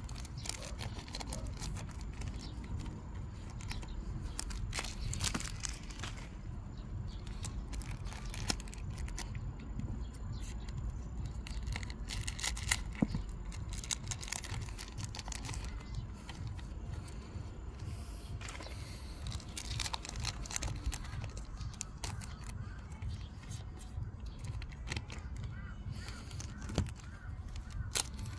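Pokémon card booster packs being opened and handled: foil wrappers crinkling and tearing, and cards sliding and tapping, in many short irregular crackles over a low steady hum.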